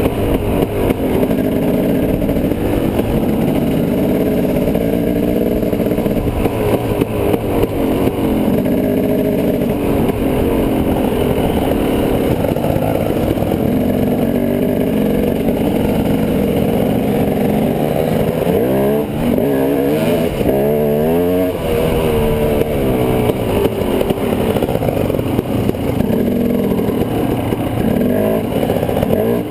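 Dirt bike engine running steadily while riding along a gravel trail. About two-thirds of the way through it revs up and down several times in quick succession.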